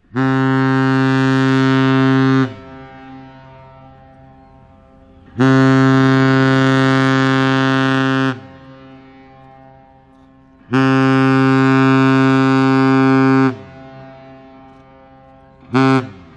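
Great Lakes freighter's whistle sounding a deep salute: three long blasts and then one short blast, echoing over the water after each.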